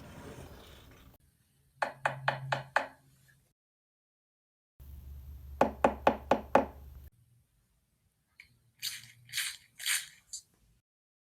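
Three short runs of sharp taps recorded as Foley effects, five or six quick strokes in each, with dead silence between the runs. The last run is softer and noisier than the first two.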